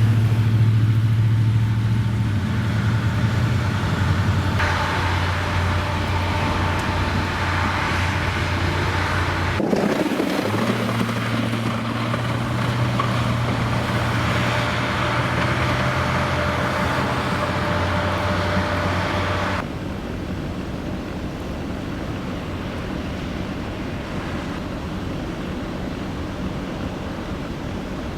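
Vehicle engine and road noise: a steady low hum under a noisy rush. The sound changes abruptly twice, about ten and twenty seconds in.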